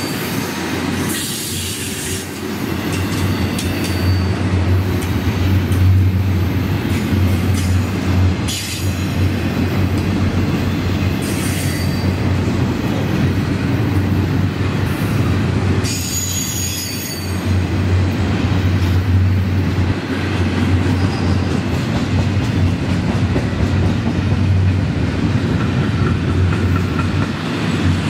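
Florida East Coast Railway double-stack intermodal freight cars rolling past close by: a steady heavy low rumble of steel wheels on the rails, with brief high wheel squeals every few seconds.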